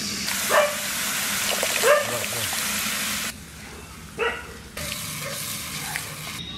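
Water poured into a hot iron wok of frying masala, hissing and sizzling, broken off after about three seconds and then resuming. A dog gives three short yelps over it.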